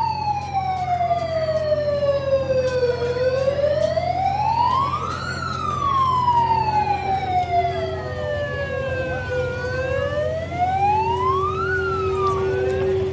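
Wailing siren sound effect played over loudspeakers: a slow, repeated rise and fall in pitch, each sweep lasting a few seconds, over a steady low hum. It cuts off shortly before the end.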